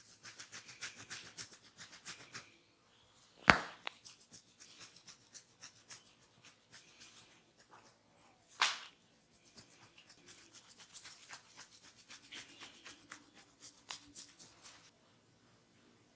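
Close-up massage handling sounds: quick, crackly rubbing and scratching of fingers on skin and hair. Two sharp, loud hits break in, about three and a half and nine seconds in.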